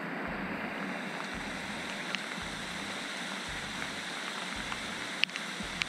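Heavy rain falling on the surface of a lake: a steady hiss of drops, with a few sharp ticks of single drops.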